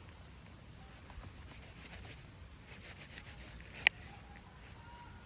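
Faint scattered clicks and ticks over a low background, with one sharp clink about four seconds in.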